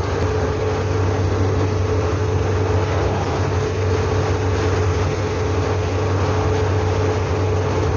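Hillman Super Minx cruising at steady road speed, heard from inside the cabin: a steady low engine drone mixed with road and tyre noise, with one thin steady whine held above it.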